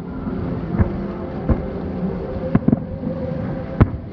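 Distant fireworks shells bursting: about five sharp booms, two of them close together near the middle and the loudest near the end.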